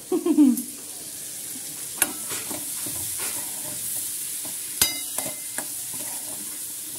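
Chopped onions, tomatoes and green chillies sizzling as they fry in a kadai on a gas stove, while a spoon stirs and scrapes them around the pan. A few sharp clicks of the spoon against the pan stand out, the loudest just under five seconds in.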